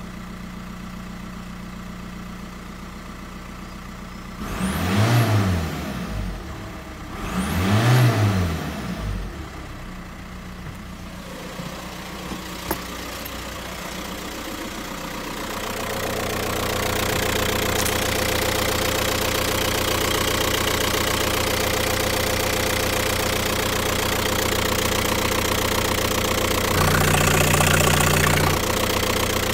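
VW 1.9 TDI four-cylinder turbodiesel idling, revved up and back down twice about five and eight seconds in. Later it is heard louder and closer from the engine bay, still idling, with the oil filler cap taken off near the end.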